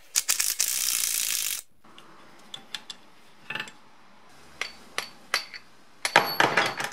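Impact wrench hammering for about a second and a half as it undoes the pinion flange nut on a BMW E30 limited-slip differential, followed by a few light metallic clinks and a quick run of metal clanks near the end as the flange and nut are lifted off and handled.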